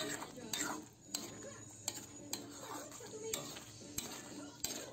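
Metal ladle stirring thick dinuguan pork blood stew in a pan, with scattered clinks and scrapes of the ladle against the pan every half second or so.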